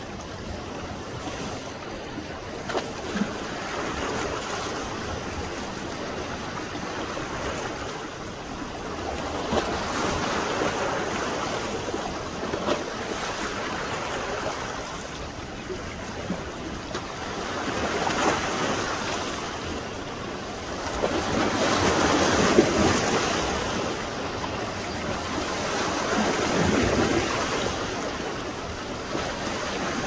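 Rough sea's waves breaking and rushing up the beach, the surf noise swelling and fading in slow surges every several seconds, with a few brief sharp ticks on top.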